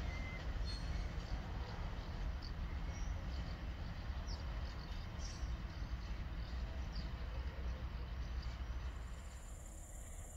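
Loaded timber freight train rumbling away into the distance, a low steady rumble that slowly fades.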